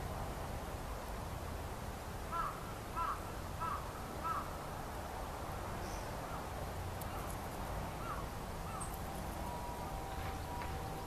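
A crow cawing four times in a quick, evenly spaced series, then a few fainter calls, over a steady background rush. Near the end a faint steady tone comes in.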